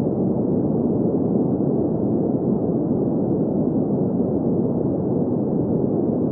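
Steady synthetic colored noise of the kind played for sleep and tinnitus masking: an even, deep rushing sound with no treble hiss, unchanging throughout.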